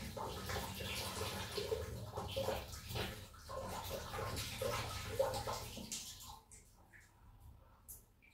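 Water running and splashing into a geyser's drip tray, dying away about six seconds in, followed by a few light clicks.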